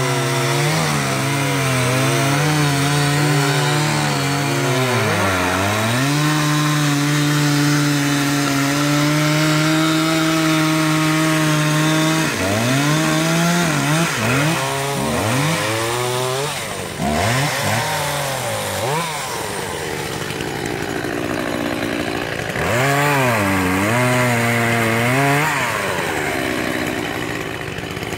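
Two-stroke petrol chainsaw cutting through a fallen log. The engine's pitch repeatedly sags as the chain bites into the wood and climbs again as it is throttled back up, with a run of quick dips and recoveries about halfway through.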